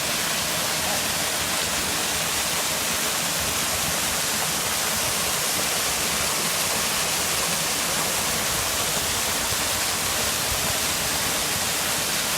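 A waterfall's steady rush of falling water, loud and unchanging.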